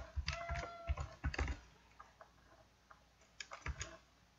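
Typing on a computer keyboard, entering a username: quick runs of keystrokes in the first second and a half, a pause, then a few more keys near the end.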